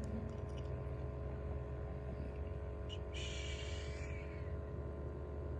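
Steady low mechanical hum, with a short hiss lasting about a second, about three seconds in.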